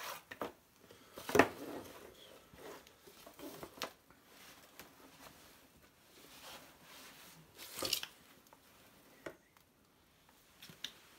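Handling noise as a plastic-sheathed heating cable is coiled and moved about: scattered rustles and light knocks, the loudest about a second and a half in and again near eight seconds.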